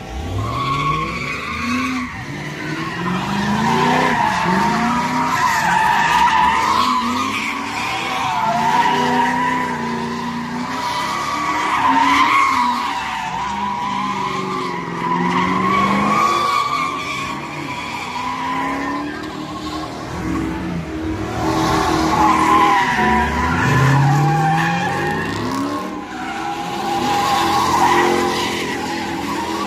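Cars spinning donuts: a continuous wavering tyre screech, with the engines revving up and easing off again and again.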